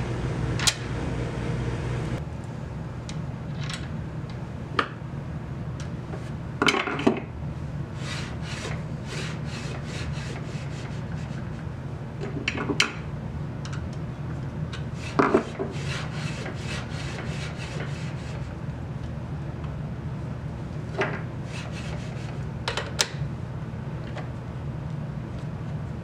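Metal parts of a mini lathe carriage lock being handled and fitted by hand: scattered clicks, light knocks and short rubbing scrapes as the aluminium clamp block and bolt are set against the steel carriage and ways, over a steady low hum.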